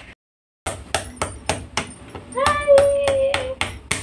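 Sharp, regular knocking at about three to four strokes a second, cut off for about half a second just after the start. About halfway through, a single high, steady call, voice-like, is held for just over a second over the knocking.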